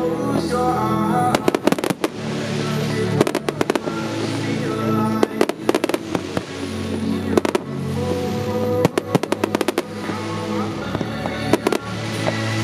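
Fireworks bursting in quick clusters of bangs and crackles every couple of seconds, over steady music.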